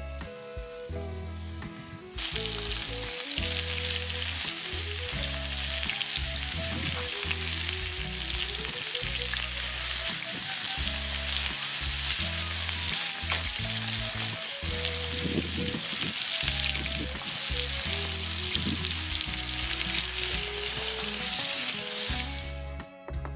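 Steaks sizzling in butter in a cast iron skillet over a fire pit. A steady hiss starts about two seconds in and cuts off near the end, with background music underneath.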